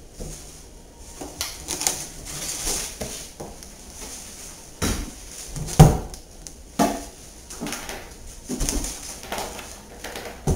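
Handling noise from a Kasco 3400VFX aerating fountain being turned over: its wire screen and hollow plastic float knocked and rattled as they are lifted, in irregular knocks, the loudest about six seconds in.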